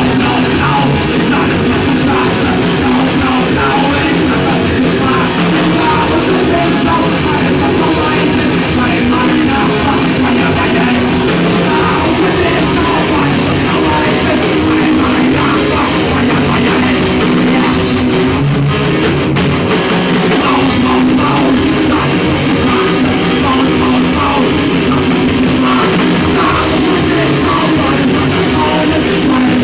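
A rock band playing live at high volume: distorted electric guitar, bass guitar and drum kit.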